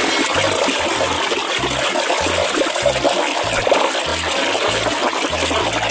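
Water sloshing and splashing steadily as a hand churns and scrubs in a plastic basin of foamy soapy water.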